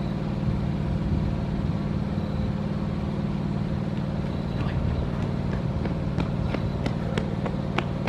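A steady low mechanical rumble, like a motor running nearby, with a few sharp clicks in the last couple of seconds.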